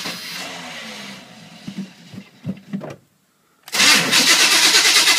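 Cold start of a 1986 Chevy K5 Blazer's 350 V8: the engine sputters unevenly and dies out, then about three and a half seconds in it is cranked again, loud and rhythmic. It is running on nasty old gas through a partly plugged Quadrajet carburetor, with a flywheel the owner says is messed up.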